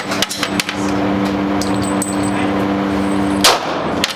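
A .40-calibre Glock pistol fires a single sharp shot about three and a half seconds in, after a few faint clicks near the start. A steady low two-tone hum runs underneath.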